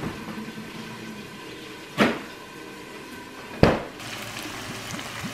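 Two sharp knocks of kitchen handling over a steady background, then, about four seconds in, a hiss of cubed chicken sizzling in a frying pan as teriyaki sauce is poured in.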